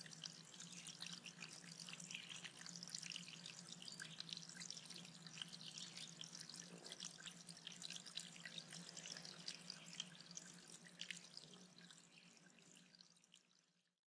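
Small pond waterfall trickling and splattering over a rock, heard close up, with a low steady hum underneath. It fades out near the end.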